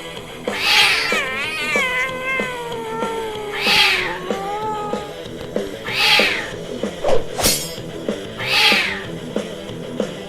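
A cat's long, wavering meow, falling in pitch over about four seconds, over background music with a steady beat and four short hissing swells.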